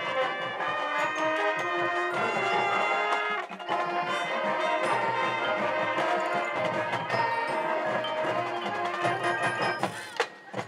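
Marching band playing: brass and the front ensemble's mallet percussion together. The music breaks off briefly about a third of the way through and falls away near the end.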